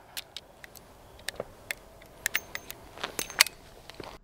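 Scattered light clicks and ticks at irregular intervals, a few with a short high ring, the loudest about three and a half seconds in.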